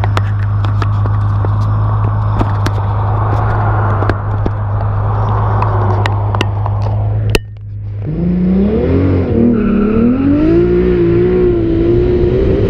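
Turbocharged 2JZ-GTE straight-six in a built Supra held at steady revs with many sharp pops and crackles, then a sharp crack about seven seconds in, a brief dip, and the engine pulling hard with its pitch climbing unevenly in a test launch.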